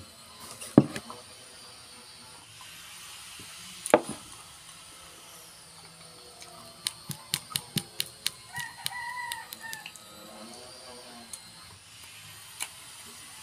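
A rooster crows once, briefly, about nine seconds in. Sharp clicks and knocks come before it: a loud one about a second in, another about four seconds in, and a quick run of about eight clicks just before the crow.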